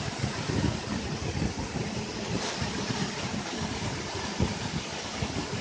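Steady rushing noise of a robotic welding line in an automotive factory, with an uneven low rumble underneath.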